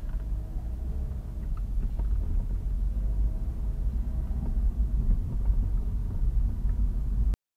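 Low, steady rumble of a car driving slowly, engine and road noise heard inside the cabin through the dash cam's microphone, with a few faint ticks; it cuts off suddenly near the end.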